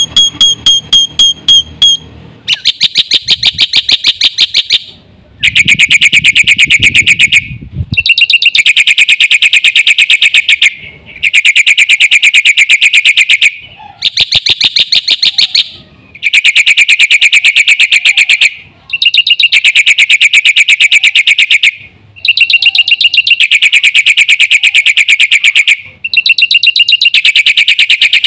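Black-winged myna (jalak putih) giving loud, harsh, rapid chattering calls, each a fast, even rattle of notes lasting two to three seconds, repeated about ten times with short breaks between them.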